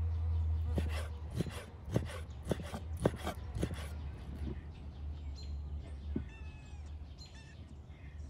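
Knife chopping beef heart on a wooden cutting board: about six sharp knocks roughly half a second apart in the first few seconds, then a few short high calls.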